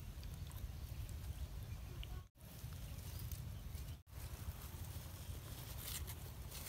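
Outdoor ambience dominated by a steady, fluctuating low wind rumble on the microphone, which drops out completely for a moment twice.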